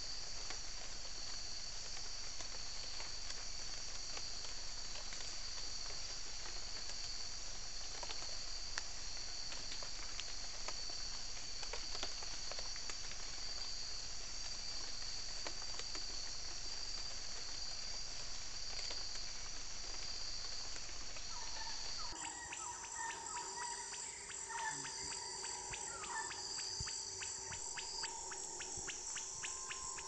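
Rainforest insect chorus: a steady, high-pitched buzzing of insects with a few faint ticks. About two-thirds of the way through it cuts abruptly to a different recording with a rapid, even pulsing and a held lower tone.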